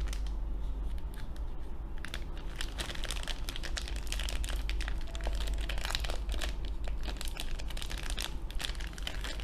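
Plastic packaging crinkling as it is handled, in many quick irregular crackles.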